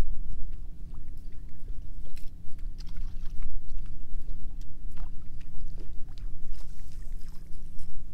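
Steady low hum of a bass boat's bow-mounted electric trolling motor, with a rumble of wind on the microphone and scattered light clicks and ticks from the rod, reel and lure.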